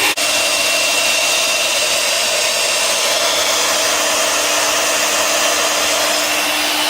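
Small Ryobi blower running steadily at full speed, blowing air through a freshly cleaned dryer vent duct: a constant whine over a rush of air. The sound cuts out for an instant just after the start.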